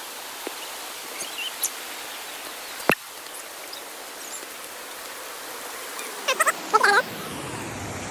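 Steady rushing hiss of flowing stream water on a forest trail. A single sharp click about three seconds in, and a few short high calls about six to seven seconds in.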